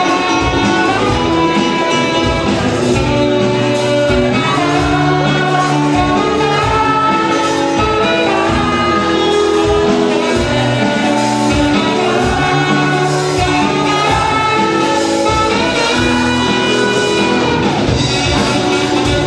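Live band playing in a large hall: saxophones and electric guitar over a steady drum beat, with singing.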